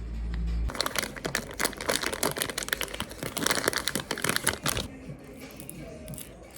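Packaging wrap crinkling and rustling as a package is unwrapped, dense crackling for about four seconds and then dying down. A low hum stops under a second in.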